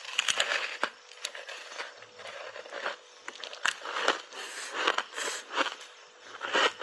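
Refrozen ice coated in matcha powder being bitten and chewed right at a clip-on microphone: a run of irregular sharp cracks and crunches as the ice breaks between the teeth.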